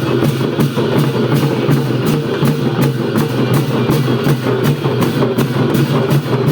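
Traditional Newar percussion music of drums and cymbals, played as a fast, even beat of about four strokes a second.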